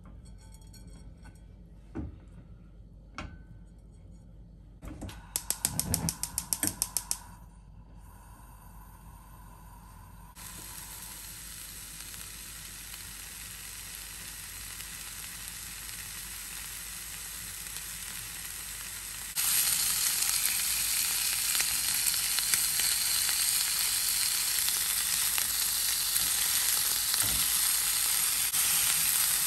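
Pork-belly-wrapped cherry tomato skewers frying in a nonstick pan over medium heat: the sizzle starts softly, builds, then jumps louder about two-thirds of the way through as the fat renders. Before the sizzle, a couple of taps as the skewers are laid in, then about two seconds of rapid, even clicking from the gas hob's igniter.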